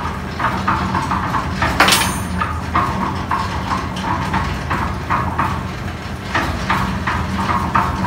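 Concrete mixer with hopper running: a steady low hum with a rhythmic metallic clanking, about three knocks a second, and one sharper clank about two seconds in.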